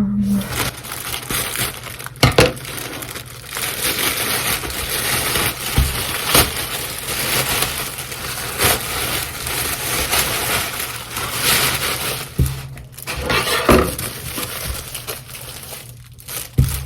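Packaging being handled and torn open: continuous crinkling and crumpling of wrapping, with several sharp knocks scattered through it.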